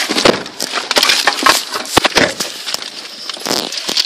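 Hands handling a phone close against its microphone: a loud, busy run of scraping, rubbing and knocking.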